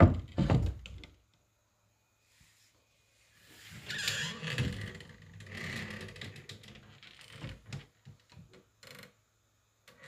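A door slams shut with a loud thud right at the start, followed by a second knock about half a second later. After a couple of seconds of quiet comes a longer stretch of rattling and rubbing as the door is worked again, then a few small clicks near the end.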